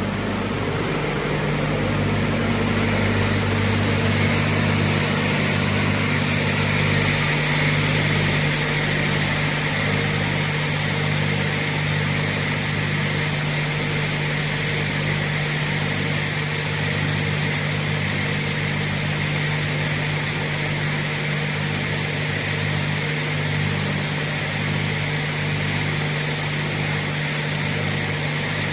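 Brodpol WP-160 crawler-fed shaft multi-rip saw running, its 55 kW main motor and shaft of 45 cm blades giving a steady deep hum under a broad hiss that comes up a few seconds in.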